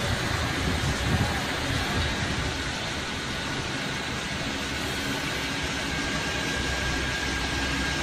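Vögele asphalt paver's diesel engine running steadily, with a faint, steady high whine over the engine noise.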